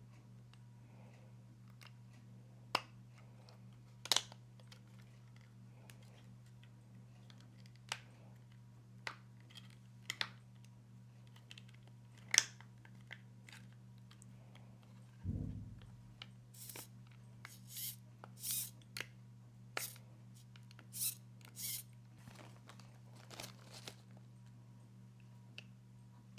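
Small parts being handled during hands-on assembly: scattered sharp clicks and taps, a dull thud about halfway through, then a run of short crisp crunching or snipping noises. A steady low hum sits underneath.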